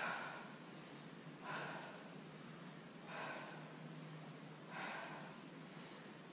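A woman's breathing, faint, four short breaths about a second and a half apart, as she lies on the mat catching her breath during a core workout.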